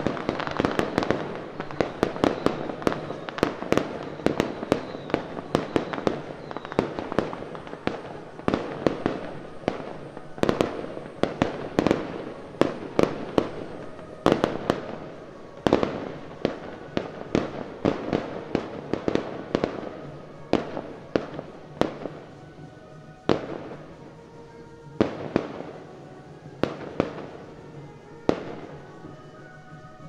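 Firecrackers going off in rapid, irregular cracks, dense at first and thinning out to scattered bangs over the second half. Music with steady tones comes in faintly near the end.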